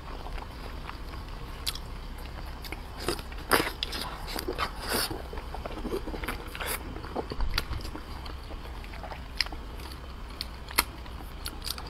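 Close-miked chewing of soft, saucy braised pork dumpling: wet mouth smacks and sticky clicks scattered throughout, the sharpest at about three and a half seconds and again just before eleven seconds, over a low steady hum.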